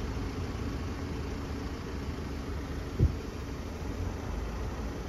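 Steady low vehicle rumble, with a single short thump about three seconds in.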